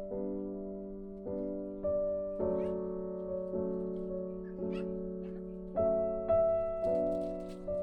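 Background piano music: slow, gently struck chords that each ring and fade.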